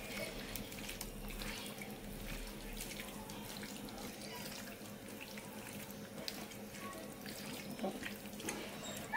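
A hand squishing and mixing raw chicken pieces in a yogurt and spice marinade in a steel bowl: faint, wet squelching with many soft ticks.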